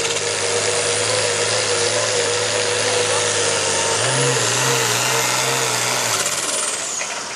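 Turbocharged diesel of a Pro Farm pulling tractor running wide open under full load while dragging a weight-transfer sled, with a high turbo whine that climbs about four seconds in. Near the end the engine note and whine fall away and it gets quieter.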